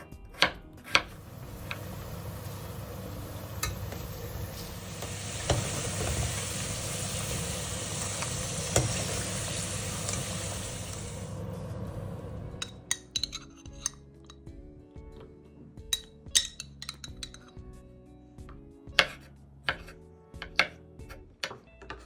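Food sizzling in a hot frying pan for about eleven seconds, with a few utensil clicks, then cutting off suddenly. After that come scattered sharp clinks and taps of utensils against dishes over light background music.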